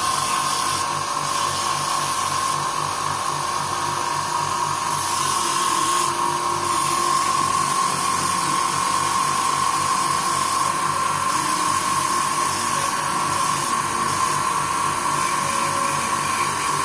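Power tool running steadily with a constant high whine over a hiss, working the tip of a sword blade to brighten it.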